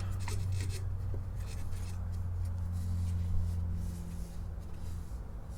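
Light, irregular scratchy rubbing and dabbing on oiled wood as excess tung oil is wiped out of the crevices of a pierced wooden turning, over a steady low hum.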